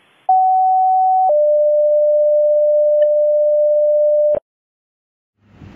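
Two-tone sequential fire dispatch paging tones: a higher steady tone for about a second, then a lower steady tone for about three seconds, cutting off suddenly. These are the tones that alert the station to a call. Street and vehicle noise starts near the end.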